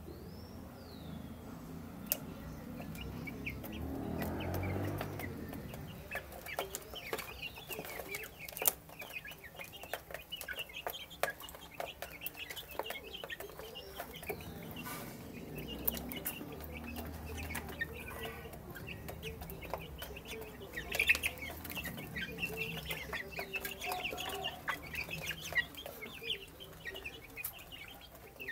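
A flock of young chickens clucking and peeping in short high calls while feeding, with frequent sharp clicks of beaks pecking at the feed dish.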